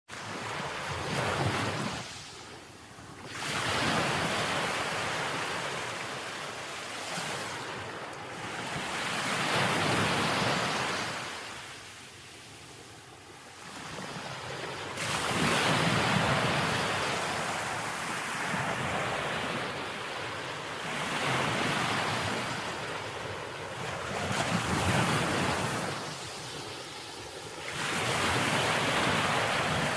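Sea waves breaking and washing on the shore, the surf swelling and falling back every few seconds.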